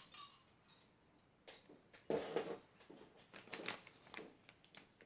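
Fluffy slime being kneaded and stretched by hand: irregular wet clicks and squelches, the loudest a little past two seconds in.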